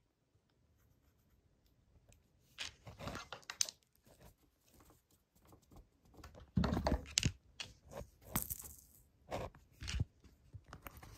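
Paper shopping bag rustling and scraping in short irregular bursts as kittens paw and bat at toys in and around it, with a louder thump and rustle a little past halfway.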